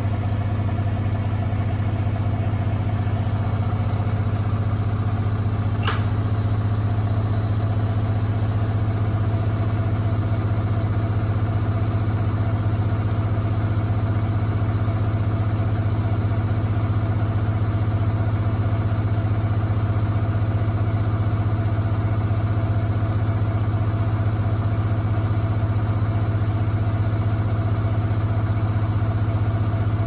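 Front-loading washing machine drum spinning with a steady, even hum. About six seconds in there is a single brief twang from the drum.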